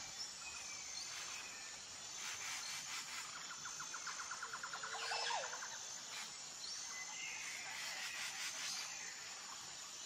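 Faint outdoor nature ambience: a steady high-pitched insect sound runs throughout, with a few short bird chirps and a quick rapid trill of about a second and a half near the middle.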